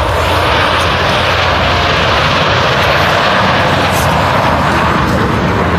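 Four F/A-18 Hornet jets flying by in close formation, their twin-engine jet noise a loud, steady rushing roar with a low rumble beneath.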